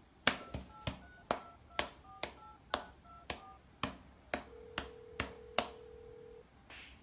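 Push-button keypad pressed about a dozen times, roughly two presses a second, each a sharp tap with a short two-note touch-tone beep. Partway through, a steady single tone starts and lasts about two seconds.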